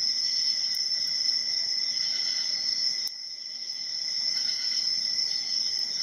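Steady high-pitched insect trilling, with a few faint ticks of a hook pick working the pins of a padlock.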